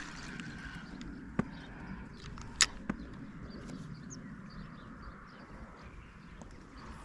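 Steady outdoor background rush broken by three sharp clicks, the loudest about two and a half seconds in, with a smaller one just after it.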